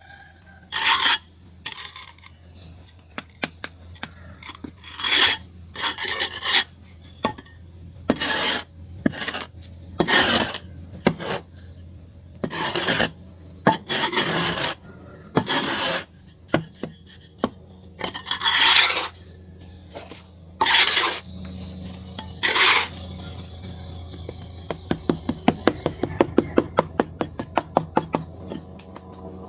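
A block of charcoal being scraped into shape in a series of separate rasping strokes. These give way near the end to a run of quick light ticks, about three or four a second.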